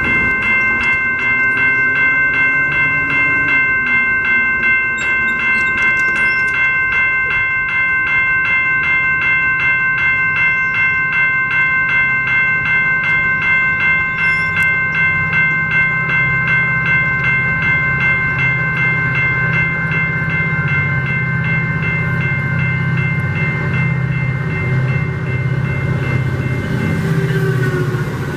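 Railroad grade-crossing warning bell ringing in an even, repeating strike while a train rumbles past, the rumble growing heavier in the second half.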